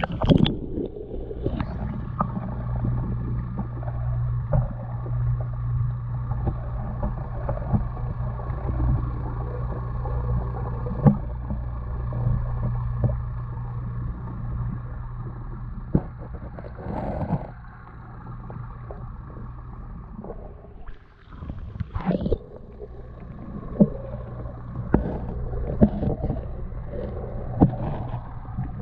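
Muffled underwater sound picked up by a submerged GoPro in its waterproof housing: a low steady hum with scattered sharp clicks and knocks.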